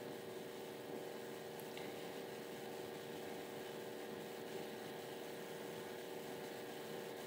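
Quiet room tone: a steady electrical hum with hiss, and a faint tick about two seconds in.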